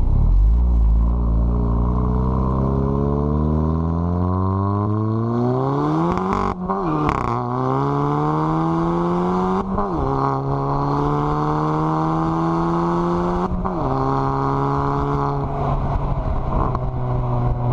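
Mk7 VW GTI's turbocharged 2.0-litre four-cylinder, on a Stage 2 tune with a catless downpipe, pulling under acceleration. The engine note rises steadily for about six seconds, then drops sharply at upshifts about six and a half, ten and thirteen and a half seconds in, each marked by a short crack, and holds fairly steady between the later shifts.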